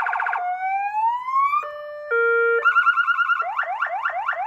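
TS-100 N 200 W electronic siren amplifier sounding through its speaker and being switched through several tones in quick succession. It starts with a fast warble, then a slow rising wail, then two steady tones one after the other, then a fast pulsing tone, and ends on quick repeated rising yelps, about five a second.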